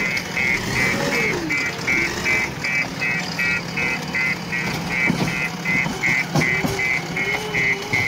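JCB 3DX backhoe loader's diesel engine working, its pitch rising and falling with the hydraulic load. A rapid electronic beeping at about three beeps a second runs over it, and a few clanks come between about five and six and a half seconds in.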